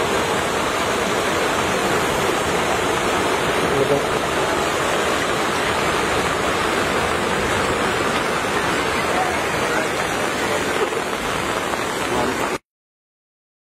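Monsoon floodwater rushing across a road and over a submerged bridge, a steady loud rush of water that cuts off suddenly near the end.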